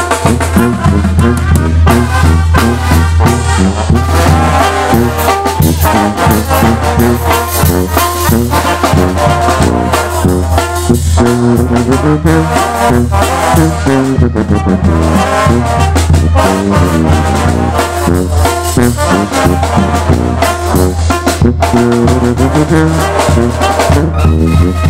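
Mexican banda playing live at close range: trumpets and trombones carry the tune over drums and cymbal keeping a steady beat.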